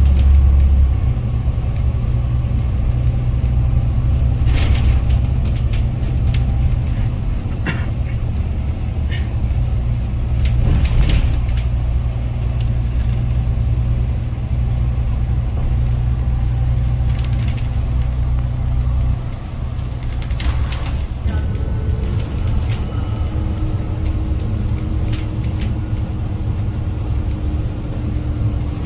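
Inside a moving bus: steady, loud low engine and road rumble with a few brief knocks and rattles. The rumble eases a little about two-thirds of the way through.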